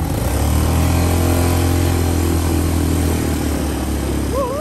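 ATV engines running steadily at low speed while the quads drive through a shallow rocky stream, with water splashing and rushing around the wheels.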